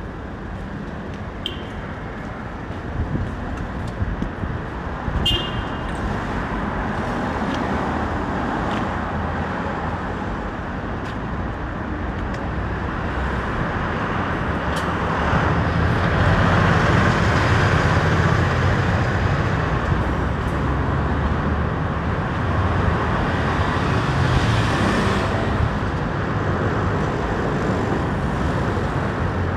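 Steady city road traffic of cars and buses, growing louder about halfway in as a bus passes close by.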